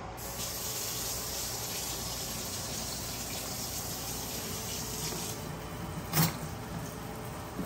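Water running steadily from a kitchen tap, shut off about five seconds in. About a second later there is one sharp knock.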